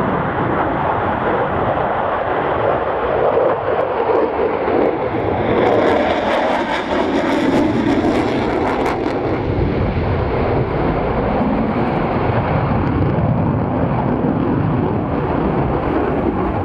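Twin General Electric F404-GE-402 turbofans of an F/A-18C Hornet in a display pass, running in a loud continuous jet roar. From about six to nine seconds in there is a crackling stretch, with the afterburners lit.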